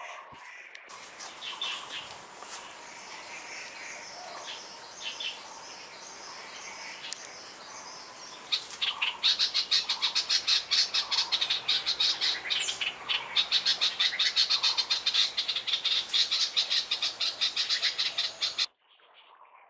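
Birds chirping in the trees. About halfway through, a loud, rapid, evenly pulsed chirping comes in. The sound cuts off suddenly near the end.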